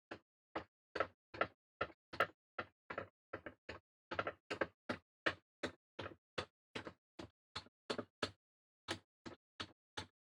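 Screwdriver turning out small Phillips-head screws from a scale RC truck frame's link mounts: a steady series of light clicks, about two and a half a second.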